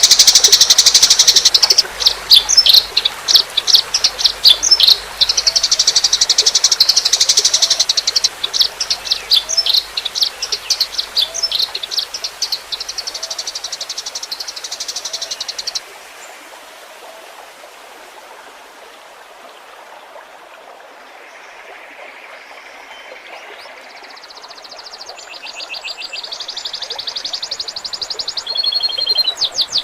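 A songbird singing a loud stream of rapid, high-pitched chirps and trills, a training-recording style of song. About halfway through the singing stops abruptly, leaving only the faint trickle of water, and fast trills return near the end.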